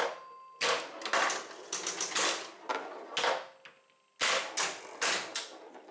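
Bally 4 Queens electromechanical pinball machine in play: a rapid, irregular series of sharp clacks and rattles from its solenoids, relays and score reels as the ball is played, with a brief pause about four seconds in.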